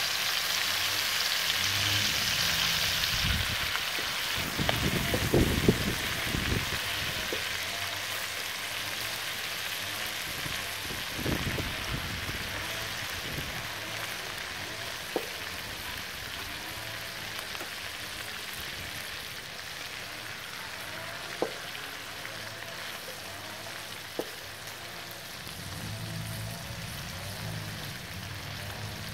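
Chicken thighs sizzling steadily as they fry in fat in a pan over charcoal; the sizzle is loudest for the first few seconds, then settles. Metal tongs knock and click against the pan several times as the pieces are moved.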